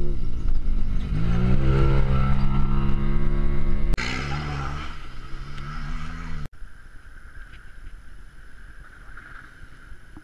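Side-by-side UTV engines at full throttle on a dirt rally track: one engine's pitch dips about a second in, then climbs and holds, and after a cut a second engine revs up. About six and a half seconds in the engine sound cuts off suddenly to a much quieter steady hiss.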